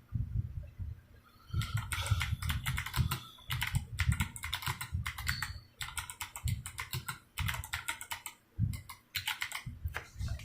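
Typing on a stock DROP CTRL high-profile keyboard fitted with Kailh Box Jade clicky switches and PBT keycaps: fast, sharp keystroke clicks with a low thock under each. There is a short lull about a second in, then steady typing with brief gaps.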